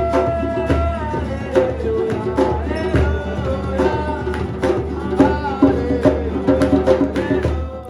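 Background music: a held, bending melody over a steady drum beat.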